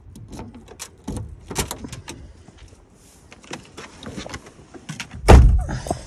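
Key clicking and rattling in a Suzuki car's door lock, a few knocks as the door is opened, then the door pulled shut with one heavy thump about five seconds in.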